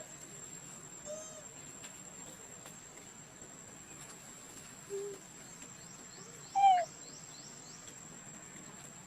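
Insects keep up a steady high-pitched drone throughout. Over it come three short animal calls: one about a second in, a lower one near the middle, and the loudest, a brief falling call, about two-thirds of the way through. Faint rising chirps follow near the end.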